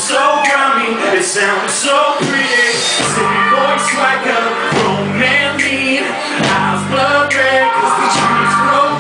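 Live band music with a male lead vocal into a microphone over electric guitar; low bass notes come in about three seconds in.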